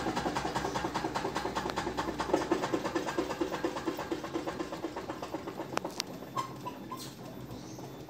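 Samsung top-loading washing machine drum spinning in its final spin-dry, with a fast, even rattling tick that grows gradually quieter, and a few sharp clicks in the second half.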